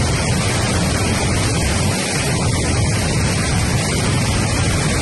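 Turbulent floodwater rushing and churning in large standing waves, a loud steady rush of noise.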